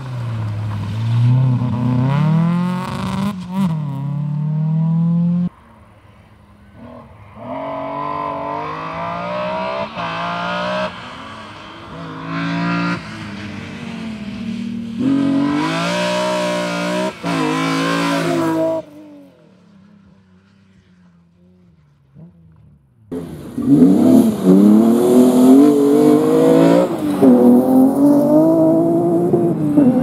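Rally car engines revving hard on a gravel stage, several cars in turn, pitch climbing and dropping with each gear change. In the last part a car slides through loose gravel, its engine at high revs over a loud hiss of spraying stones.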